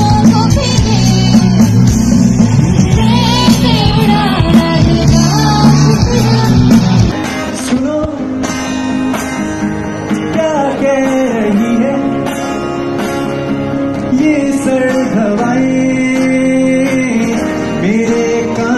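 Live stage music: a singer over a loud, bass-heavy band. About seven seconds in it cuts to a quieter song, a voice singing over guitar.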